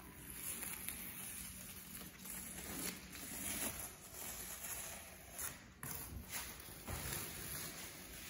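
Green painter's tape being peeled off a freshly painted wall: a quiet, uneven crackling rip, with a few sharper clicks in the second half.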